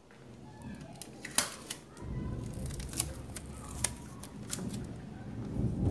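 Clear packing tape being handled to close off a cut plastic bottle: a few sharp clicks and crackles over a low rustle of handling, which starts about two seconds in.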